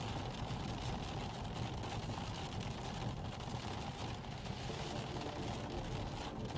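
Car driving on a rain-soaked road, heard from inside the cabin: a steady rumble of engine and wet tyres, with rain pattering on the car and the windshield being wiped.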